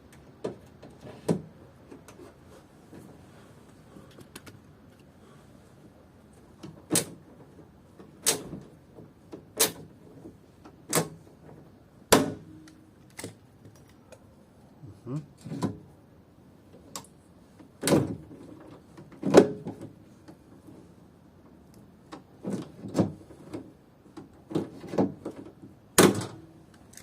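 Hand pop-rivet gun being squeezed repeatedly to set rivets fixing a window regulator into a car door, giving sharp metallic clacks and knocks. There is a run of strokes about a second and a half apart in the middle, and a quicker cluster near the end.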